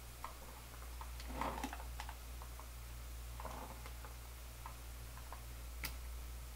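Faint clicks and light rustling of hands working the RC car's small toggle switches and wiring, with one sharper click near the end, over a steady low hum.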